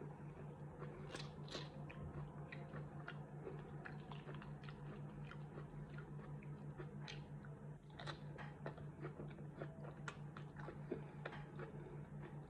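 Close-miked chewing of mac and cheese stuffed into onion cups: irregular wet mouth clicks and soft crunches, over a steady low hum.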